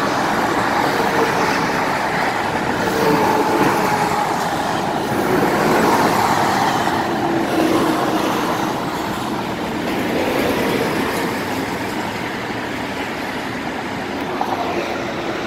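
Busy freeway traffic of cars and semi-trucks passing below: a steady rush of tyre and engine noise that swells a little as heavier vehicles go by and eases slightly in the second half.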